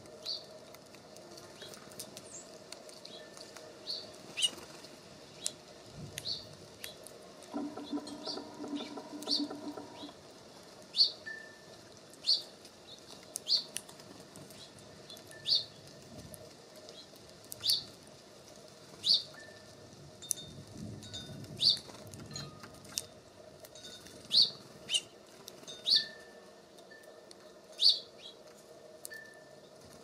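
Small songbirds at a feeder: a short, sharp, high chirp repeated every second or two, with a faint thin whistle now and then. A low buzzing hum lasts about two seconds, starting near the eight-second mark.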